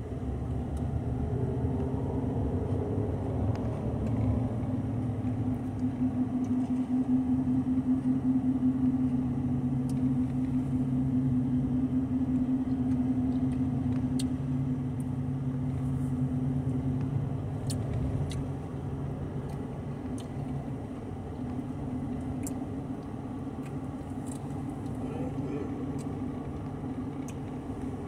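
Car running, heard from inside the cabin as a steady low hum that eases off about two-thirds of the way through, with a few faint light clicks.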